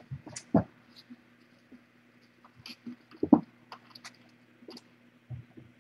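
Scattered light knocks and rustles of kittens moving about and climbing, with a short thump about three seconds in, over a faint steady low hum.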